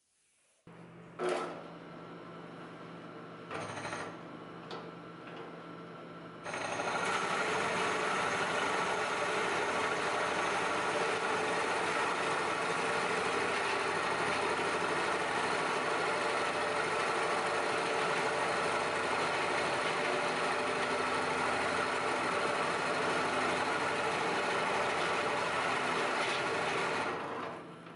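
Drill press motor running, with a knock about a second in; from about six seconds in a large Forstner-type bit bores into a maple board, a loud, steady cutting noise that stops about a second before the end.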